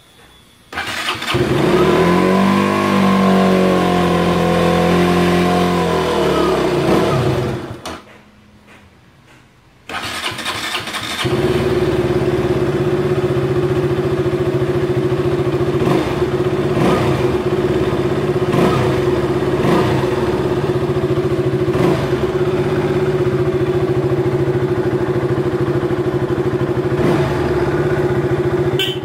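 KTM Duke 200's single-cylinder four-stroke engine starting and running with its pitch rising and falling. It cuts out after about seven seconds, restarts, and settles into a steady idle.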